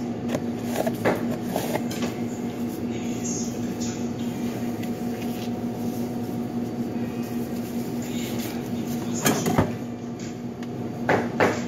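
Steady hum of commercial kitchen equipment, with scattered knocks and light clatter of items being handled. The loudest knocks come about nine and a half seconds in.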